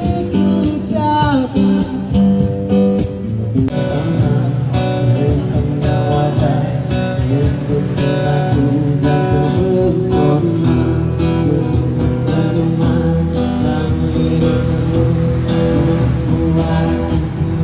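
A street busker strumming a guitar, with singing. The sound changes abruptly about four seconds in.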